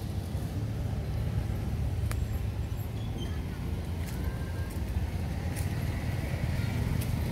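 Steady low outdoor rumble with no clear pitch, with a few faint clicks over it.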